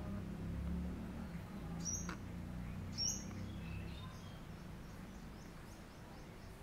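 Small birds chirping: two sharp, high, falling chirps about two and three seconds in, then a few fainter calls, over a steady low rumble.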